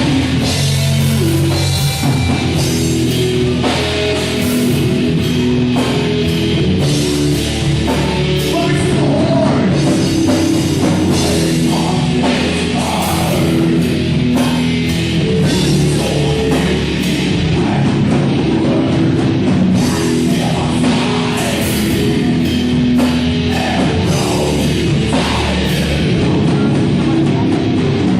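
Heavy metal band playing live at full volume: distorted guitars and a drum kit with dense cymbal and drum hits.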